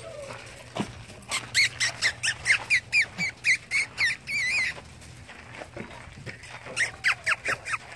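German Shorthaired Pointer puppies squealing: a quick run of short, high squeaks, about three a second, for some three seconds, then a shorter run near the end.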